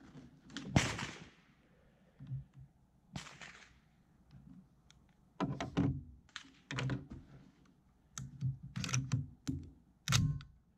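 Irregular sharp clicks and knocks, about a dozen, the loudest about a second in, from gear being handled at a shooting bench beside a rifle in a rest.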